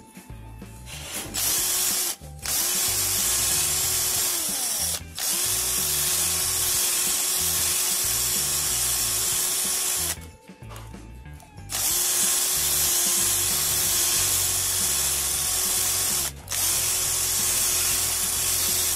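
Cordless drill boring through a rubber exhaust hanger mount to enlarge its holes. It runs at a steady speed in several runs of a few seconds each, with short stops between them.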